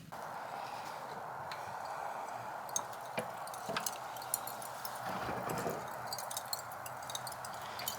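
Lit charcoal burning in a kamado grill: a steady hiss with scattered small crackles and ticks.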